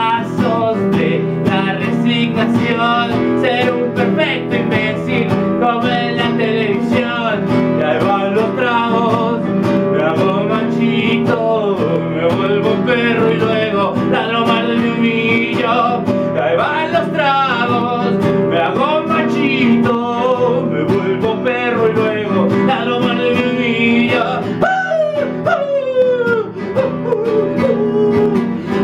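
A man singing a solo rock song to his own strummed acoustic guitar, his voice sliding between notes.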